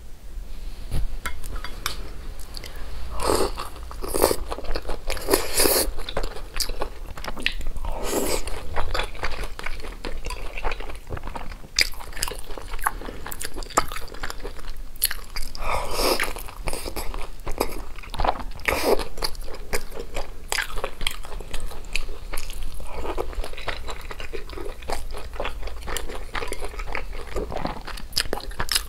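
Close-miked eating sounds: biting into and chewing large soft steamed dumplings, with many short mouth clicks throughout.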